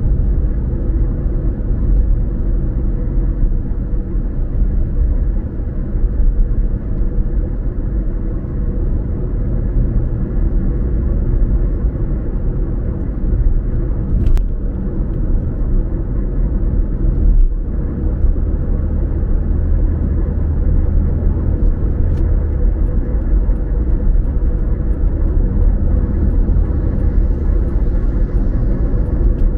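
Car driving at a steady pace: a continuous low rumble of engine and road noise, with two small clicks partway through.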